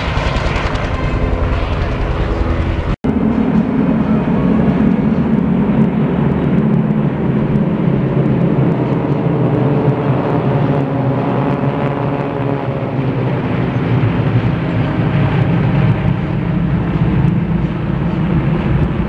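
Bell UH-1 Huey helicopter passing low, its two-blade rotor beating in even pulses. About three seconds in, a cut leads to the steady, loud drone of a large formation of single-engine propeller warbirds flying overhead, their engine tones bending as they pass.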